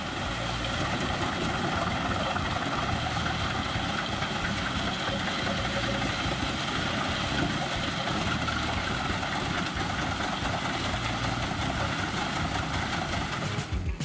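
Truck-mounted Biber 92 wood chipper running steadily under load: a constant engine drone and the even roar of the cutter chipping logs as the crane feeds them through.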